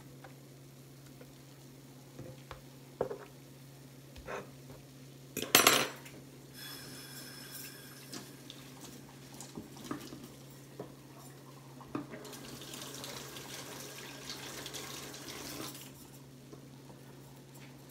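Kitchen utensils and dishes clinking and knocking, with one loud clatter about five and a half seconds in, over a steady low hum. A tap runs for a few seconds in the second half.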